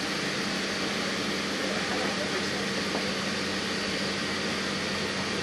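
Steady rush of ventilation air with a low, even hum, heard inside the bare fuselage cabin of the Boeing 777X-9 test aircraft.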